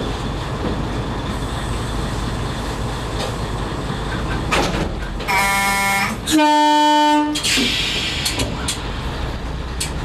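Diesel railcar's engine idling with a steady rumble. About five seconds in, the horn sounds twice: first a shorter, higher-pitched blast, then a louder, lower blast of about a second.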